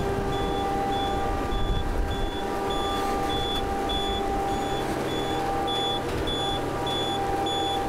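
Multi-axle girder transporter carrying a full-span concrete box girder: its engine and drive run with a steady hum and rumble, under a high warning beep that repeats about twice a second.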